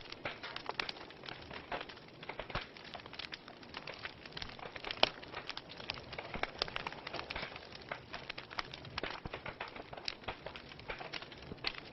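Wood fire burning in a fireplace: steady low hiss with frequent irregular crackles and pops, one louder pop about five seconds in.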